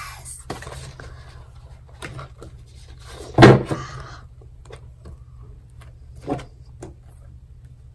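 Printed paper flyers and cards being shuffled and handled, with soft rustles and small knocks, and one loud thump about three and a half seconds in.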